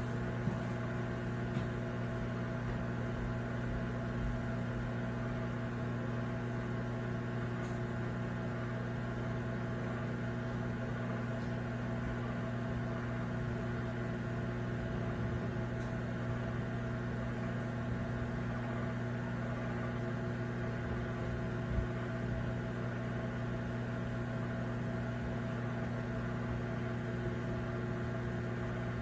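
Microwave oven running with a steady low hum, with a few faint clicks.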